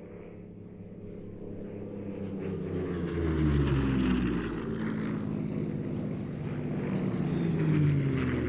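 Two Merlin-engined piston fighters, a Hispano Buchon and a P-51D Mustang, passing low one after the other in a tail chase. Their engine note swells and drops in pitch as each goes by, the first loudest about halfway through and the second near the end.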